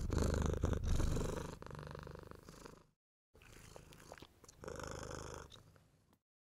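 A domestic cat purring loudly, in two stretches with a brief cut of dead silence about three seconds in; it stops abruptly near the end.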